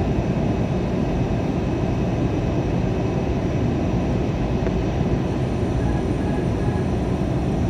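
Steady cabin roar of an Airbus A321 airliner on approach: engine and airflow noise heard from a window seat, even and unbroken, with a faint high whine coming in about five seconds in.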